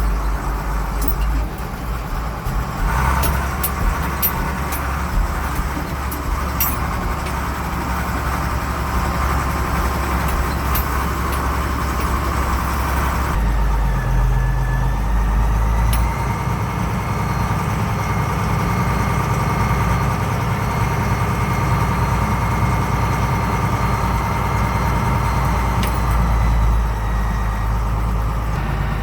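Farm tractor engine running steadily under way, heard riding along with it, with light rattles and clicks in the first several seconds. About 13 seconds in the sound shifts and a steady thin whine rides above the engine.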